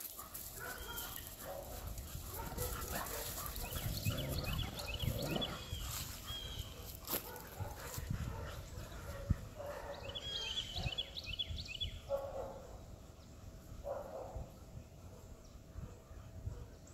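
A dog gives a few short barks at play, the clearest about twelve and fourteen seconds in, among quick repeated high chirps.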